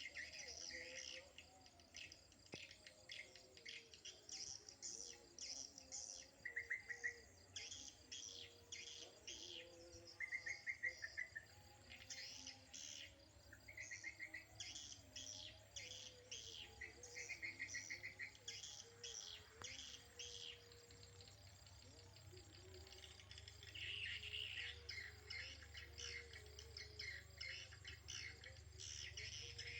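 Swiftlets twittering: rapid trains of high, clicking chirps in repeated bouts, with a short buzzy trill now and then, over a faint low hum.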